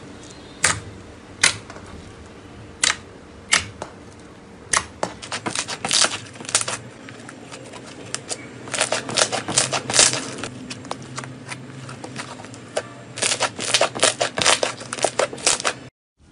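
Fluffy slime squeezed and pressed with fingers, making sharp clicking pops as trapped air bursts. A few single clicks come first, then quick runs of clicks from about five seconds in. The sound cuts off just before the end.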